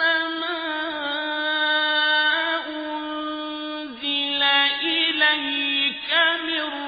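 A man chanting the Quran in melodic tajweed recitation. His high voice holds long notes for the first few seconds, then moves through quicker ornamental turns after about four seconds.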